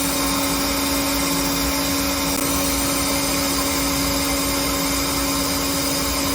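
Citizen A20 Swiss-type CNC lathe running, its spindle spinning steadily at about 4,000 RPM with an even hum and a steady whine that does not change.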